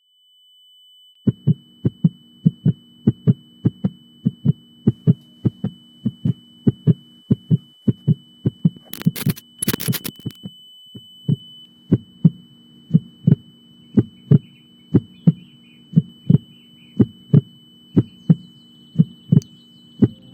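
Heartbeat sound effect: deep, regular thumps about two or three a second over a low hum. A thin, steady high tone stops about halfway through, and two short loud bursts of noise come about nine and ten seconds in.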